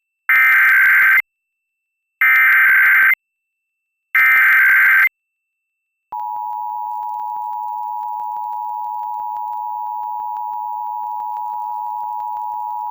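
Emergency Alert System test: three one-second bursts of SAME header data tones, a second apart. About six seconds in, the steady two-tone attention signal (853 and 960 Hz) starts, quieter than the bursts, and holds.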